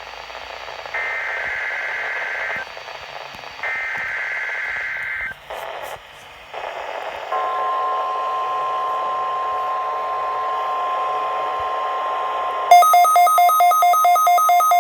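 NOAA Weather Radio alert heard through a receiver with reception hiss. There are two bursts of the warbling digital SAME header tones, then from about 7 seconds in a steady single-pitch warning alarm tone. Near the end a weather radio receiver's rapid electronic alert beeping, about five beeps a second, joins over the tone.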